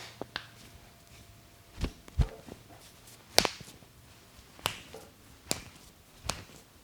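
Hands slapping and clicking on an arm during a massage: about eight sharp, irregularly spaced strikes, with two duller thuds about two seconds in and the loudest crack a little later.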